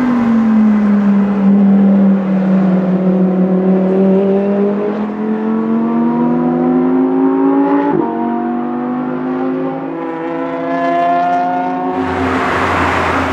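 Lamborghini Huracán Performante's naturally aspirated V10 on the stock exhaust, running hard on a race track. After a brief dip its note climbs steadily under acceleration, with a sharp upshift about eight seconds in, then climbs again. A rush of noise joins near the end.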